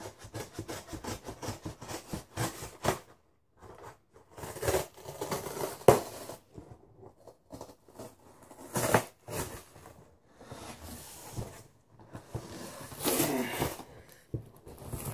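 Cardboard shipping box being handled and worked open by hand: repeated rubbing, scraping and crackling of cardboard and packing, in bursts, with one sharp knock about six seconds in.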